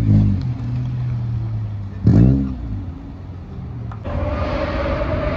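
A modified car engine idling, then blipped once about two seconds in: a quick rev up and straight back down. Near the end a different steady whine with a hiss starts abruptly.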